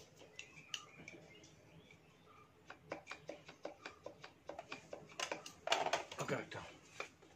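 Light clicks and taps of small parts being handled on the shaft as the stages of a submersible borewell pump are fitted together by hand. The clicks are sparse at first and come thick and fast in the second half.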